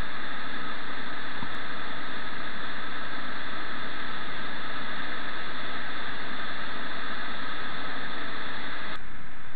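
Steady rushing of foaming river white water churning close to the microphone. The sound changes abruptly near the end, losing some of its hiss and gaining a low rumble.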